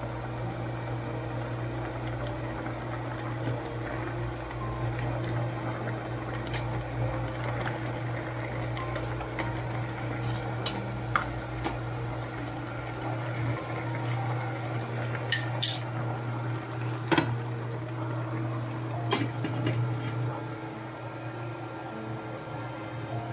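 A pot of tinuwa (Cebuano fish soup) boiling under a steady low hum. Several sharp clinks of metal on the pot come in the middle and later part.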